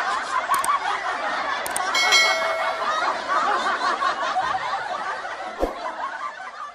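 Canned audience laughter, many people laughing together, fading out at the end. Two sharp clicks come about half a second and a second and a half in, followed by a short ringing chime about two seconds in.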